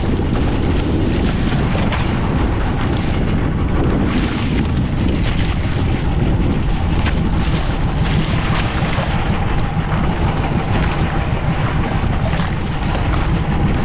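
Fishing boat under way at sea, its engine running steadily under heavy wind buffeting on the microphone, with irregular gusts and slaps throughout.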